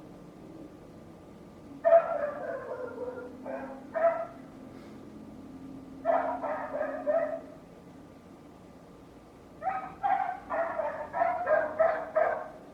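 A dog barking and yelping in three bouts of quick, repeated barks, about two, six and ten seconds in, the last bout the longest.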